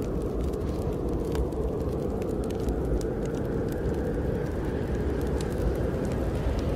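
Wood fire crackling in a fireplace, scattered sharp pops and ticks over a steady low rumble of snowstorm wind.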